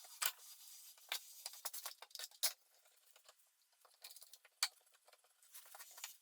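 A few faint, scattered clicks and light taps, with near silence between them.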